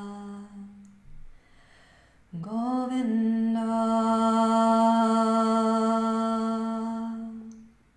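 A woman's voice singing a slow devotional chant to Krishna in long held notes. One note fades out just under a second in; about two and a half seconds in, a new note slides up in pitch and is held steady for about five seconds, then fades away.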